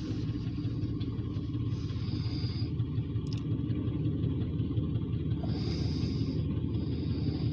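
Freight train of covered grain hopper cars rolling slowly past, a steady low rumble heard through the car's cabin, with a faint high-pitched sound coming and going every second or two.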